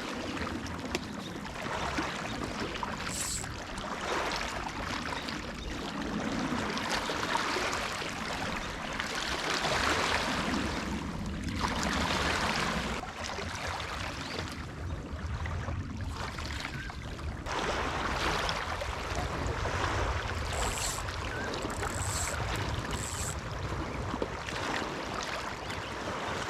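Lakeshore wind and small waves: a steady wash of noise that swells and eases every few seconds, over a low rumble, with a few brief high chirps.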